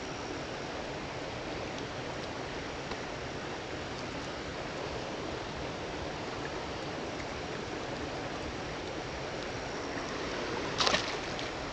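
Steady rushing of flowing river water, with a brief sharper noise near the end.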